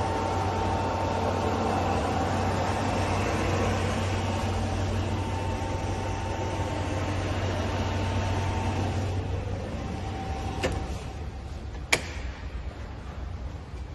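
Kemutec Kek 200-litre ribbon blender running: its electric motor, belt drive and gearbox give a steady hum with a couple of faint whining tones. The hum fades out about nine or ten seconds in, followed by two sharp clicks, the second louder.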